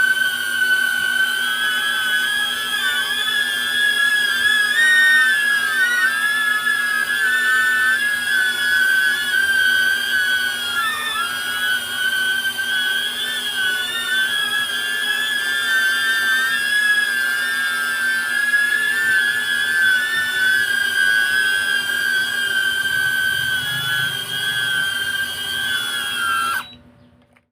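DJI Neo mini drone flying on Gemfan GEM-D51 propellers, its motors and props giving a steady high-pitched whine whose pitch wavers slightly up and down. The whine cuts off abruptly near the end.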